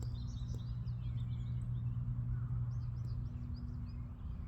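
Several songbirds chirping and twittering in quick, high, overlapping calls, over a low steady hum that drops away about three seconds in.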